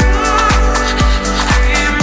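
Deep house music: a steady four-on-the-floor kick drum at about two beats a second under held chords.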